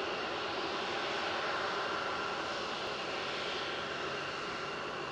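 RC-135W Rivet Joint's CFM56 (F108) turbofan engines running at taxi power as the jet rolls along the taxiway: a steady jet rush with a faint whine on top.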